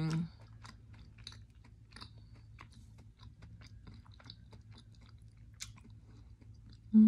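Soft, quiet chewing of a chewable jelly lollipop, with faint wet mouth clicks scattered through. A hummed vocal sound trails off just as it begins, and another starts right at the end.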